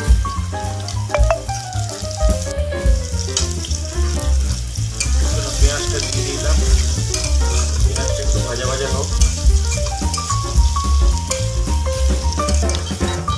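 Sliced onions sizzling in hot oil in a steel kadai, stirred with a metal spatula that clicks and scrapes against the pan. Background music with a heavy bass beat plays over it.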